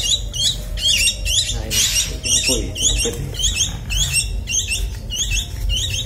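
Javan myna (jalak kerbau) nestlings, about 15 days old, chirping over and over, short high calls about two to three times a second.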